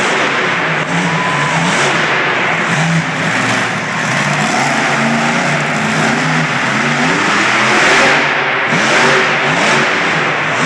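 Raminator monster truck's engine revving hard, its pitch climbing and dropping again and again.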